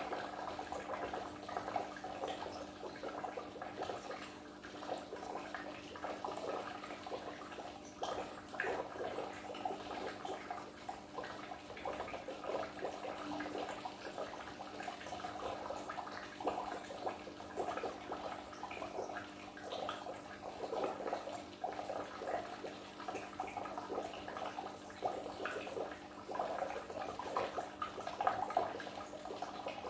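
Water in a goldfish aquarium, bubbling and trickling continuously with many small splashes, over a steady low hum.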